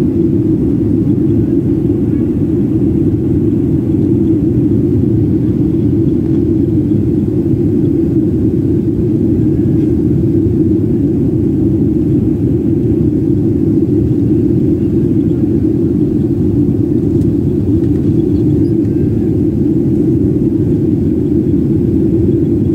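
Jet airliner cabin noise during takeoff and initial climb: engines and rushing air heard from inside, a steady deep noise with no breaks.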